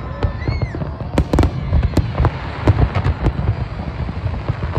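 Aerial fireworks going off in quick succession: many sharp bangs and crackles at irregular intervals over a continuous low rumble of bursting shells.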